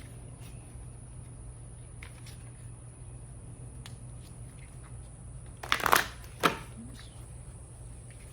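A deck of oracle cards being shuffled by hand: faint card rustles and ticks, then two short, louder shuffling bursts about six seconds in, over a steady low hum.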